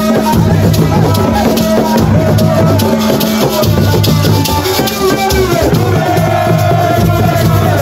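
Loud music with a steady beat: drums and a rattling shaker, with a voice coming in about halfway through.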